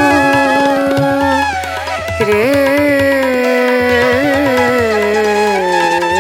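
Background Indian instrumental music: a sustained melody line that slides between notes, over steady low drum strokes.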